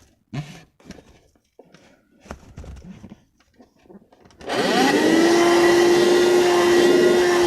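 A few short knocks and rustles of handling, then, about four and a half seconds in, a portable car vacuum cleaner switches on: its motor whine rises quickly in pitch and settles into a steady drone with a hiss of rushing air.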